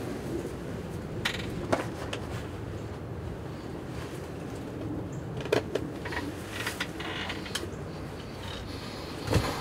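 Steady background hiss of wind, broken by scattered light clicks and knocks of gear being handled in a hunting blind. A sharper knock comes near the end.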